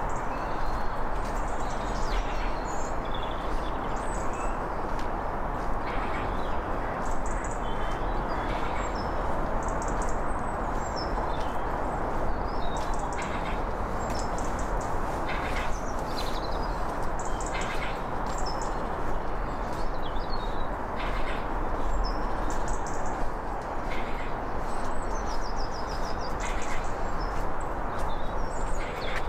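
Small birds chirping and trilling in short high calls, over a steady rushing hiss. Footsteps on a paved towpath thud every second or two.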